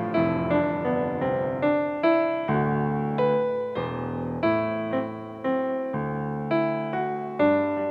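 Background piano music: a gentle melody of single struck notes, a few a second, each fading away over longer-held low notes.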